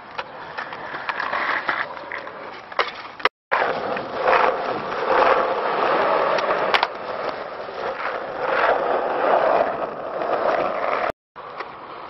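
Skateboard wheels rolling on asphalt, with sharp clacks of the board on the ground, louder and rougher in the middle of the stretch. The sound drops out completely twice for a moment.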